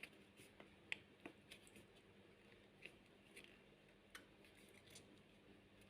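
Faint, irregular light clicks and taps from kitchen handling, about a dozen spread over several seconds.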